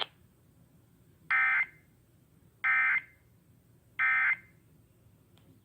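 Emergency Alert System end-of-message data signal: three short bursts of screechy digital tones, about a second apart, sent after the spoken tornado warning to close the alert.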